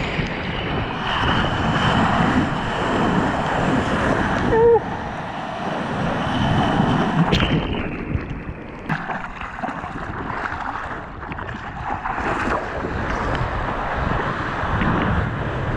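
Sea water rushing and splashing around a surfboard, with wind buffeting the microphone; the sound changes abruptly a few times. About four and a half seconds in there is one brief wavering pitched sound.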